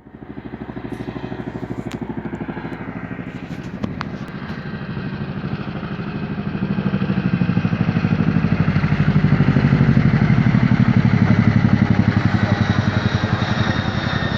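Boeing CH-47 Chinook tandem-rotor helicopter flying low overhead: a rapid, even rotor beat with engine whine, growing louder and loudest about two-thirds of the way in as it passes just above.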